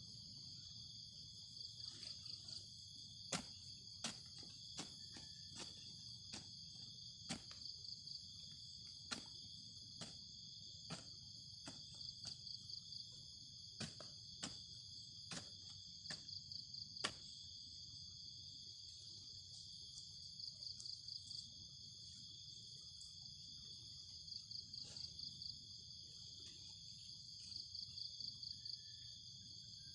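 Steady high-pitched insect chorus, crickets or cicadas, swelling into pulsing stretches now and then. Scattered sharp clicks and knocks sound over it.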